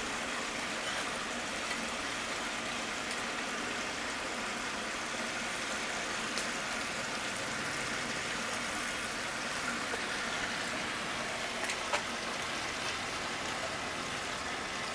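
Steady rushing of a salt kiln firing at temperature, with a few faint clicks about six and twelve seconds in.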